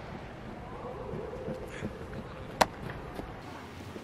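A baseball smacking into a leather glove once, a single sharp pop about two and a half seconds in, over a steady low background noise of the large indoor hall.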